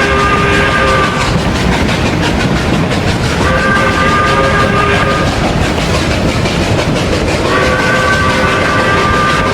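Steam train whistle sound effect blowing three blasts, several tones at once, over the continuous chuffing of a steam locomotive. The first blast ends about a second in, the second sounds from about three and a half to five and a half seconds, and the third starts near the end.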